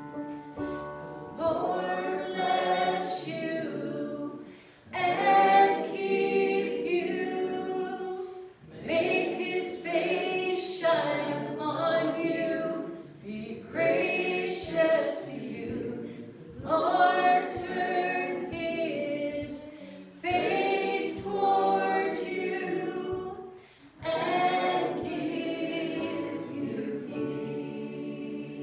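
A group of voices singing a hymn together, in phrases of about four seconds with short breaths between them.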